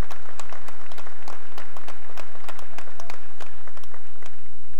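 Audience applauding, the clapping thinning out and stopping a little after four seconds in.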